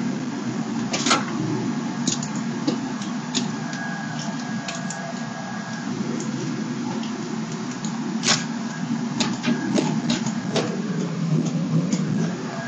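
Pickup truck running at low speed, heard from inside the cab: a steady low engine and road rumble with scattered sharp clicks and rattles, the loudest about a second in and again past the middle.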